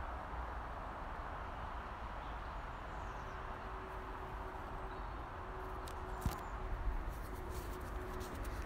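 Steady background noise of a night recording, with a low steady hum coming in about three seconds in and a few sharp clicks around six to seven seconds; no clear robin call stands out.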